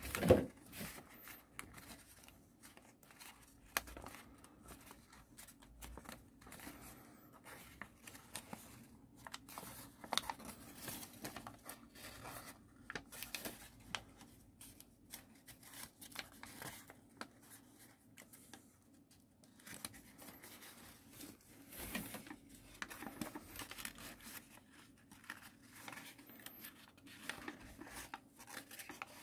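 A sheet of origami paper being folded and creased by hand: intermittent rustling and crinkling with short crackles of the paper, one louder crackle at the very start.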